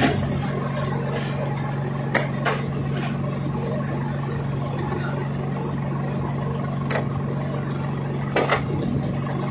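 Fishing boat's engine running with a steady low hum, with a few sharp knocks on the wooden hull, two close together about two seconds in and two more near the end.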